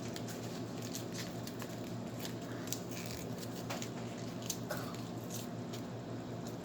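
Toy packaging being handled and opened: scattered small crinkles, crackles and clicks over a low, steady hum.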